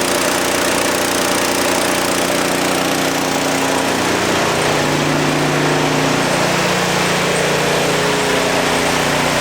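Air compressor running steadily, supplying air as a truck tire is aired up after remounting; its motor note drops slightly about four and a half seconds in.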